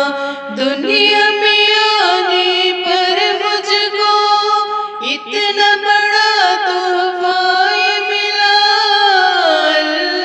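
A woman singing an Urdu hamd solo, in long held notes with ornamented turns in the melody. The line slides down to a lower note near the end.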